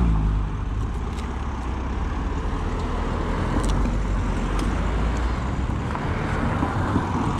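A motor vehicle engine running at idle, with steady road traffic noise.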